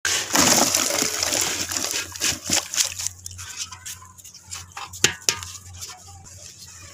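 Dry red dirt soaking and crumbling under water, fizzing and crackling as air escapes from it. A loud hiss for the first two seconds thins into scattered pops and crackles.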